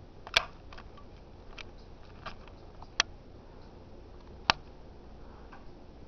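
Hunter Low Profile II ceiling fan running with a faint steady hum, under sharp clicks at uneven intervals: three loud clicks and several fainter ticks. The fan wobbles badly.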